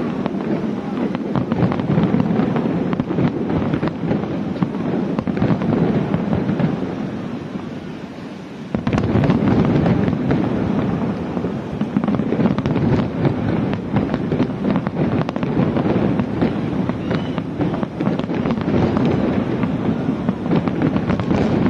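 Aerial fireworks going off in a dense, continuous barrage of booms and crackles. The barrage eases off about seven seconds in, then comes back abruptly at full strength about two seconds later.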